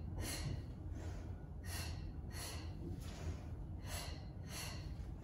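A woman's short, forceful breaths, about five, coming in pairs roughly every two seconds. They are paced to the leg pulses and switches of a Pilates scissors exercise.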